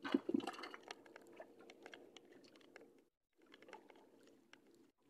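Quick, irregular clicks and light crackling of hands handling gear on a small wooden boat, over a low steady hum; the sound cuts out briefly about three seconds in.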